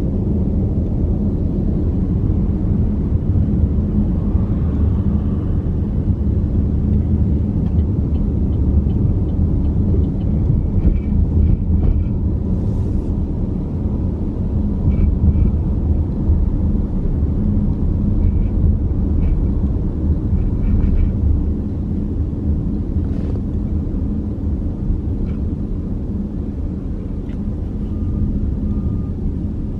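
Steady low rumble of a car driving along a road, the road and engine noise heard from inside the moving vehicle.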